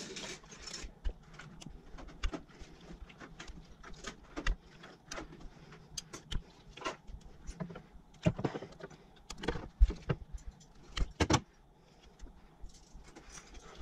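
Spark plug wire boots being pulled off and pushed onto the towers of a GM 3800 V6 coil pack: irregular small clicks and light knocks of rubber and plastic, a few sharper ones past the middle.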